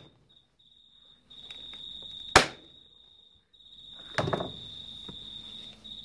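Corded electric staple gun firing once into a vinyl seat cover: one sharp snap about two and a half seconds in. A duller knock with rustling follows about four seconds in, over a steady high thin whine.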